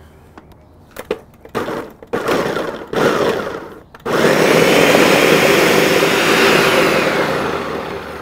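Countertop blender pureeing red chimichurri sauce (olive oil, vinegar, roasted garlic, shallot, cilantro and spices). A few clicks come first, then short pulses from about two seconds in. At about four seconds it runs steadily at full speed, easing off a little near the end.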